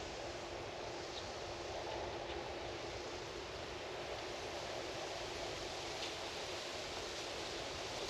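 Steady outdoor background hiss, even throughout, with a few faint, brief high chirps.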